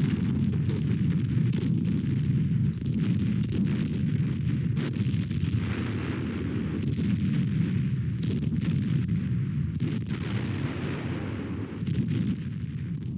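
Artillery fire and explosions, likely dubbed battle effects: a continuous low rumble of gunfire and shell bursts with many separate shots throughout.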